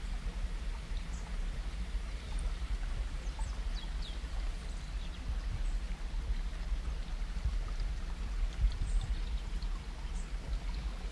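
Forest stream trickling, with a steady low rumble of wind on the microphone and a few short, high bird chirps scattered throughout.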